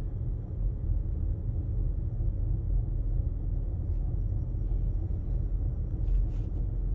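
Steady low rumble of a car's engine and tyres on the road, heard from inside the cabin while driving at low speed.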